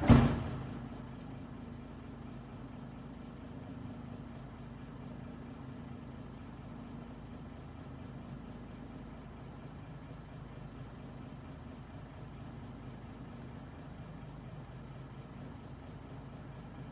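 A sharp knock, then a boat engine running steadily at low revs with a low, even hum.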